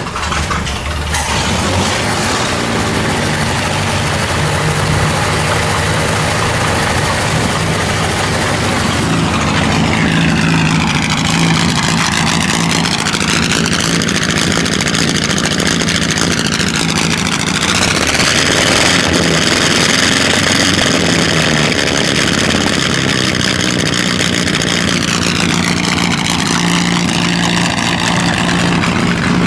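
1930 Oakland race car's 90-degree V8, with horizontal roller-cam valves, idling steadily just after being started.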